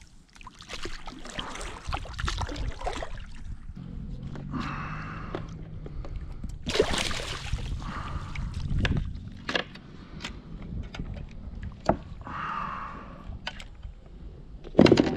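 Water splashing and sloshing as a hooked chub thrashes at the surface and is scooped up in a landing net beside a plastic kayak. Scattered knocks and clicks of the net and tackle against the hull, the sharpest near the end.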